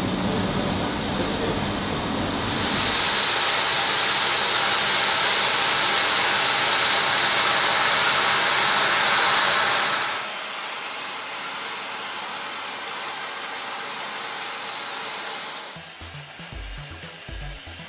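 An ISCAR Multi-Master milling head cutting metal on a CNC machine under coolant: a steady hissing rush of cutting and spray, louder in the first half. Music with a drum beat comes in near the end.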